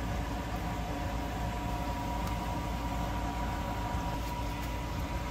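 Air conditioner running inside a car: a steady hum with a few faint ticks.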